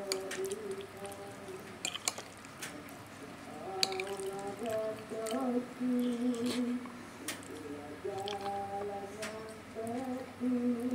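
Eating sounds: a fork clicking and scraping on a plate, with scattered sharp clicks, over a low pitched tune that rises and falls in phrases of about a second.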